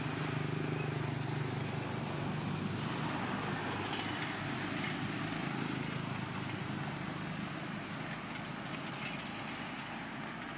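A steady low engine drone, slowly fading toward the end.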